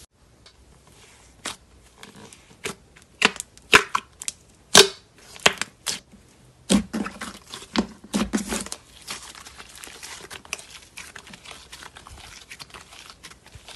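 Slime being squished and pressed by hand: a string of sharp, sticky pops and clicks, loudest a few seconds in, giving way to a denser, quieter crackling in the second half.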